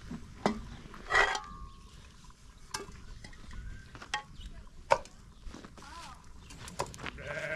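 Cooking utensils clinking and knocking against metal pots and dishes: about six sharp strikes, the loudest a ringing clink about a second in. An animal bleats near the end.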